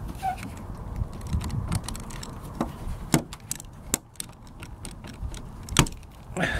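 Rear wiper arm being wiggled loose from its splined pivot shaft: a scatter of sharp clicks and knocks, the loudest about three seconds in and again near the end.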